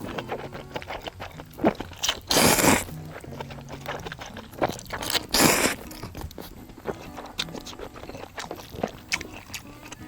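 Close-up eating of bracken ramen: wet chewing with many small crunchy clicks, and two louder slurps of noodles about 2 and 5 seconds in.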